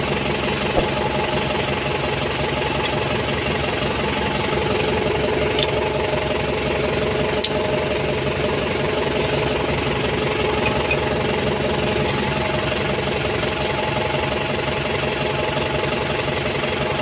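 Kubota M9540 tractor's diesel engine idling steadily, with a few faint clicks over it.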